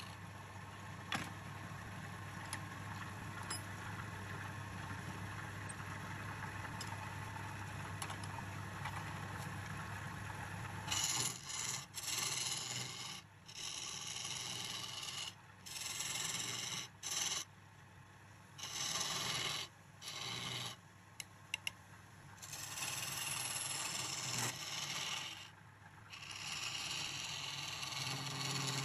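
Turning chisel cutting a spinning wooden spindle on a lathe. For the first third there is a steady low hum and hiss. After that the cuts come as repeated scraping hisses, each about a second long, with short pauses between them.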